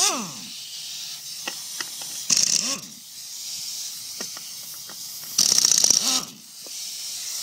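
Impact wrench run in short bursts to loosen the wheel nuts, its motor whining up and falling away with rapid hammering: one burst ends just as it starts, another comes about two and a half seconds in, and a longer rattling one comes near six seconds. Light clicks and knocks of the nuts and wheel fall between the bursts.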